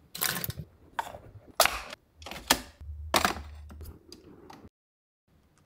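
Aluminium coffee capsules clicking and clinking as a hand rummages through a capsule holder: about six sharp clicks, with a low hum under them around the middle. The sound cuts off suddenly near the end.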